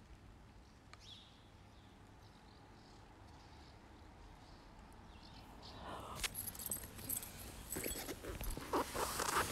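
Faint low outdoor hum, then from about six seconds in close crackling and rustling on the phone's microphone as the phone is picked up and moved.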